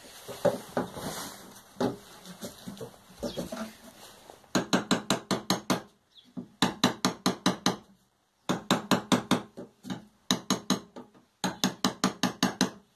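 Round metal tip of a screwdriver tapping against the inside of a steel petrol tank, knocking dents out of its bottom from within. A few scattered knocks come first, then about a third of the way in quick runs of light metallic taps begin, around six a second, in several bursts with short pauses between them.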